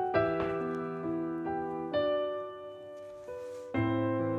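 Background music on piano: single notes and chords struck one after another, each ringing on and dying away slowly, with a fresh chord about three quarters of the way through.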